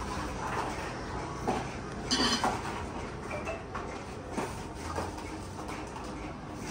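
Paper lucky-draw coupons being tipped into a container, with scattered light clatters and rustles, a brief flurry of them about two seconds in.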